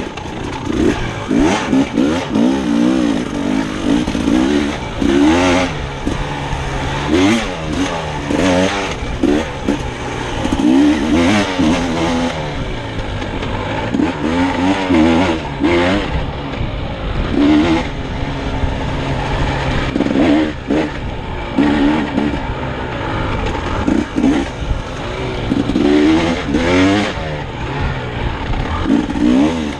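Dirt bike engine ridden hard, revving up and falling back again and again as the throttle opens and closes, with repeated knocks and rattles as the bike crosses rough ground.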